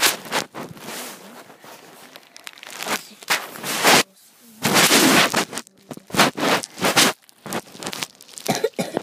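Loud rustling and crinkling close to the microphone in irregular bursts, as things are handled and brushed against in a cramped, cluttered space.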